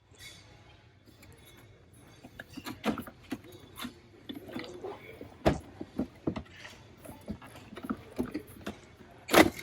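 Irregular clicks, knocks and rattles of a cash register being handled while its drawer is forced open by hand, with two sharp clunks, one about five and a half seconds in and a louder one near the end.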